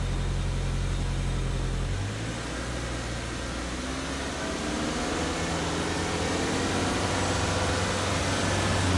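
Subaru Impreza G4 2.0i's 2.0-litre flat-four (boxer) engine heard at the tailpipe: idling steadily, then about two seconds in the throttle is opened and the engine note climbs slowly in pitch and grows louder until near the end.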